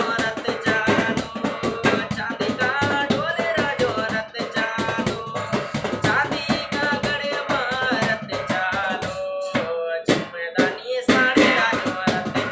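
A man singing a melody over a backing track with a steady, fast drumbeat; the beat thins out briefly shortly before the end.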